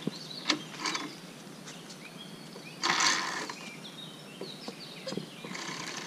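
Scattered light clicks and a brief scraping rush about three seconds in, from the metal carabiners and pulley of a safety lanyard clinking and sliding along a steel cable.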